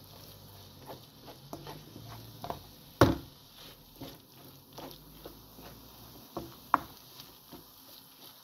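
Spatula stirring and scraping vegetables and melting cream cheese around a frying pan: soft patter and scattered light clicks, with a sharp knock of the spatula on the pan about three seconds in and a smaller one near the end.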